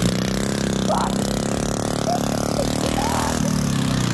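Racing lawn mower's V-twin engine running loud as the mower drives by, its pitch climbing early on and falling away near the end.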